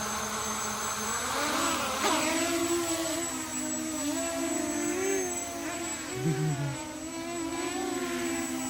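Brushless quadcopter motors spinning up about two seconds in, then a steady whine whose pitch wavers up and down as the throttle changes.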